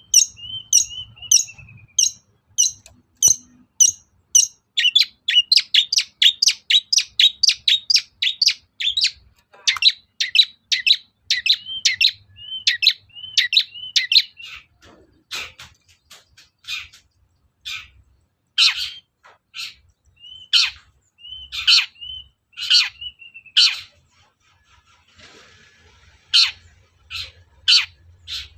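Long-tailed shrike (cendet) calling: fast runs of sharp, harsh repeated notes, several a second, broken by short curved whistled notes. The notes grow slower and louder after the middle, with a brief lull near the end.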